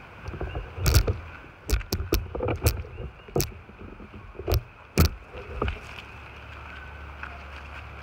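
Irregular knocks, thumps and rustles from someone stepping over dry leaf litter with a hand-held phone, about nine in all, the loudest about a second in and about five seconds in. They die away near six seconds, leaving a low steady rumble.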